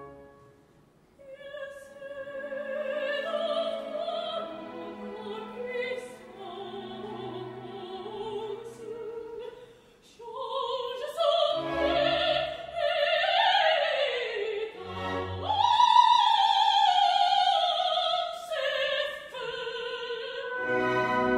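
Operatic soprano singing a slow aria with wide vibrato, accompanied by orchestra. After a brief pause at the start the line rises and falls, with a fast descending run about two-thirds through and a high note that slides down, while the orchestra enters with a few low chords.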